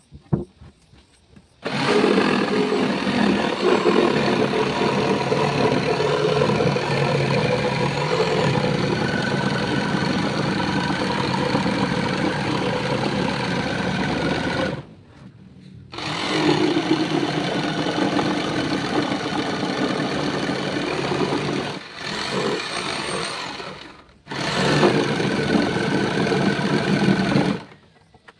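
Corded electric jigsaw sawing through a wooden board. It runs in four stretches: one long cut of about thirteen seconds, then three shorter ones separated by brief pauses.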